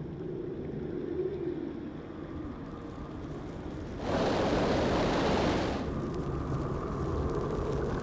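Low, steady rumbling ambience from a documentary's sound design. A louder rushing whoosh comes in suddenly about halfway through, lasts about two seconds, then fades back into the rumble.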